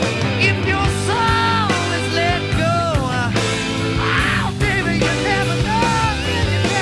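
Rock music with a singing voice over a steady drum beat, bass and electric guitar.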